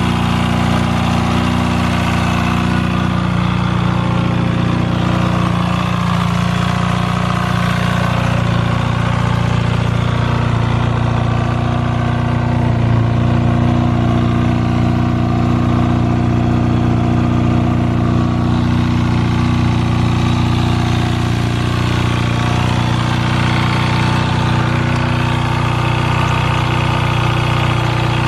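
Kawasaki Balius ZR250A's 250 cc inline-four engine idling steadily, with the abnormal noise at idle that the seller reports.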